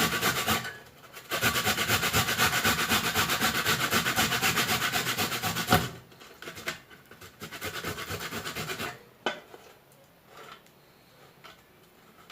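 Fresh ginger root grated on the fine side of a hand grater: rapid, even rasping strokes with a short pause about a second in, stopping about six seconds in. Fainter scraping follows until about nine seconds, then a few light clicks.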